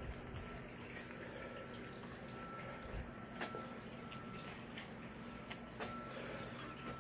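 Water from a disappearing fountain trickling over a honeycombed limestone boulder, with scattered drips about once a second.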